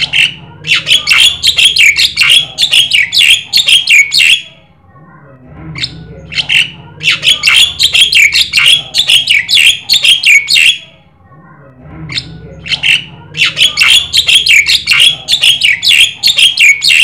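Javan myna (jalak kebo) calling loudly in three long bursts of rapid, sharp repeated notes, about four a second, with a short pause between bursts.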